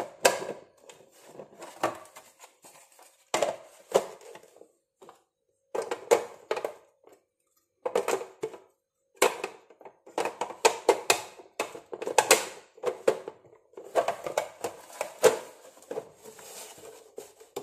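Clicks and knocks of hard plastic as a hand vegetable chopper's green blade grid is lifted out and snapped back into the base and its hinged lid is handled, coming in scattered clusters of sharp taps.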